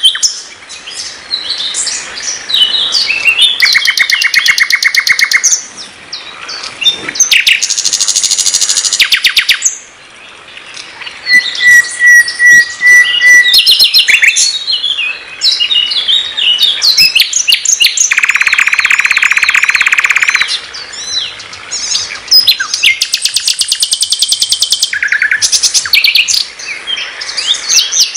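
Nightingale singing its varied song: fast runs of repeated notes and loud buzzing rattles, broken by short pauses, with a long, even, pure whistle near the middle.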